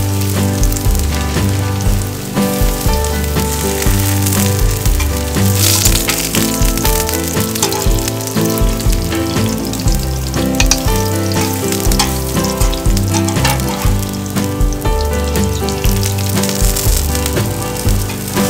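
Spring cabbage pancakes sizzling steadily as they fry in oil, with background music playing.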